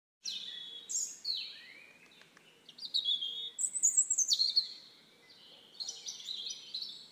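Forest birds chirping and singing: short high calls, many sliding downward in pitch, come in quick clusters one after another. There is a lull about two seconds in, and the busiest stretch is around the four-second mark.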